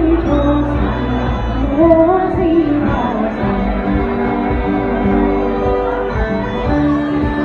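Live Irish traditional music: a woman singing, accompanied by uilleann pipes, concertina and acoustic guitar. The melody glides in the first half and settles into long held notes in the second half.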